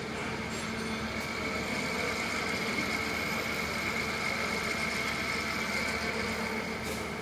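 Commercial washer extractor running under test: a steady machine drone with a constant high whine.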